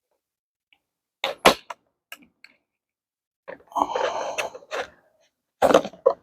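Product packaging being opened and handled by hand: a few sharp clicks, a rustling scrape about halfway through, then more clicks near the end.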